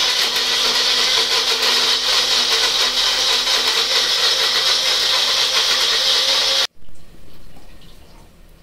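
Kitchen mixer grinder running steadily, grinding coconut with a little water to extract coconut milk. It stops abruptly near the end.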